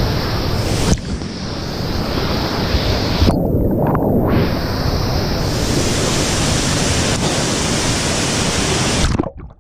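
Steady rush of a waterfall pouring into its plunge pool, heard close up, cutting off abruptly near the end.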